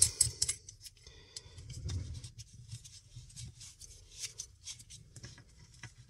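Plastic back nut being screwed by hand onto the threaded body of a panel-mount socket in a plastic switch panel. Faint, irregular clicks and scrapes of plastic on plastic.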